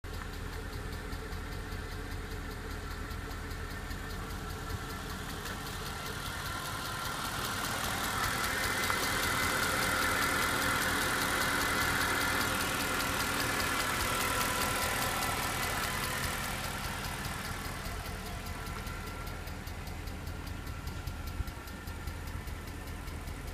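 Mercedes-Benz E63 AMG V8 engine running at idle with a fast, even ticking. The ticking is the fault the owner is recording. The sound grows louder for a stretch in the middle, then eases back.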